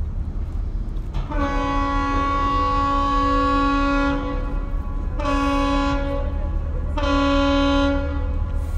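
Ship's horn sounding three blasts, long, short, then long, over a steady low rumble.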